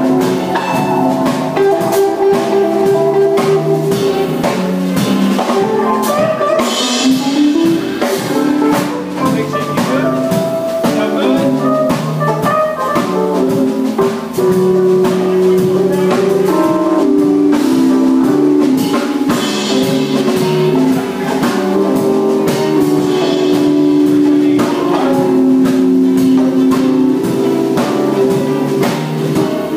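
Music with a drum kit keeping a beat under melodic pitched instruments, loud and continuous.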